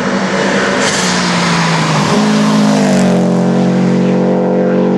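Race car's engine at full throttle as it drives past uphill; the engine note shifts in pitch as the car goes by, then holds a steady drone as it pulls away up the road.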